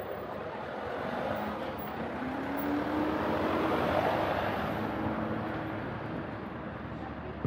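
A motor vehicle passing: its engine hum rises in pitch as it pulls away, and its noise swells to a peak about four seconds in, then eases off.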